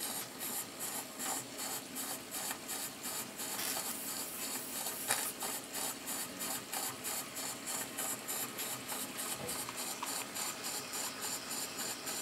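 Retrol model walking beam steam engine, single-acting, running on live steam: a very quiet, even beat of about three to four strokes a second with a faint steam hiss.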